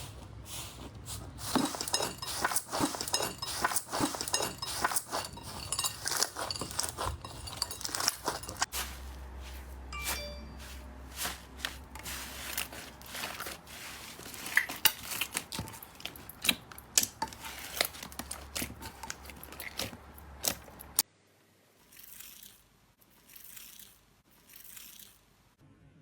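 Slime being squished, pressed and poked by hand, making dense irregular crackling and popping. It changes with cuts between clips and turns much quieter and sparser about 21 seconds in.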